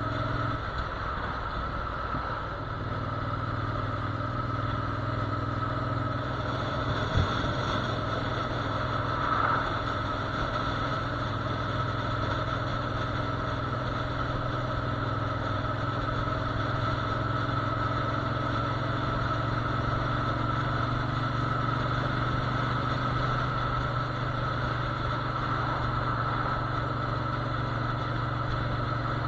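Motorcycle engine running steadily at cruising speed, with a sharp click about seven seconds in.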